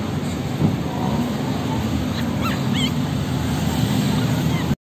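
Steady street traffic noise, with a few short high squeaks about two and a half seconds in.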